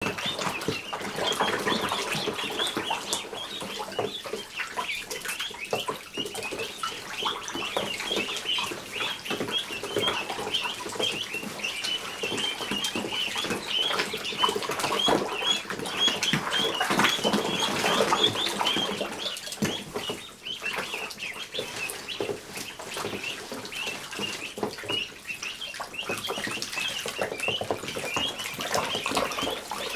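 A brood of Khaki Campbell ducklings peeping constantly with many overlapping high chirps, while the ducklings splash and paddle in a tub of shallow water.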